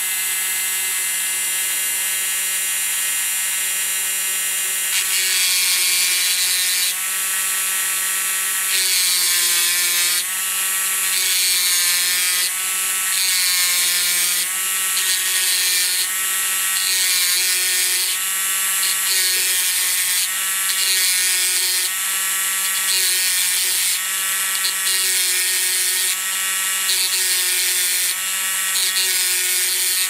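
Small electric rotary tool running steadily, its spinning bit worked against the metal parts of a petrol lighter. A whine holds throughout, and a high grinding hiss comes and goes about once a second from about a third of the way in as the bit is pressed on and eased off.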